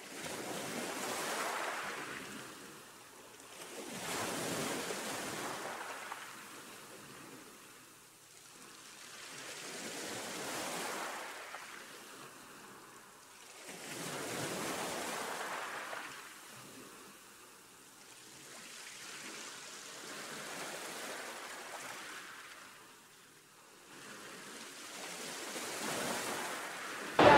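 Ocean waves washing in and drawing back, a slow swell of surf noise every four to six seconds.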